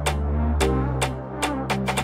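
Electronic background music with a steady beat over sustained bass notes.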